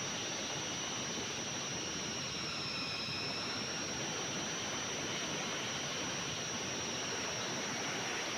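Electric grinder mill running steadily while grinding dried moringa leaves into powder: an even hiss with a steady high whine, which sags slightly in pitch about three seconds in.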